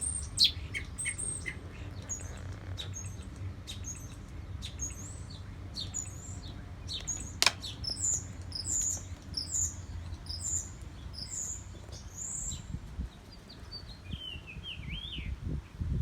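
Small bird chirping: a long series of short, high chirps at about two a second, then a lower, quick twittering phrase near the end, over a steady low rumble. A single sharp click sounds about halfway through.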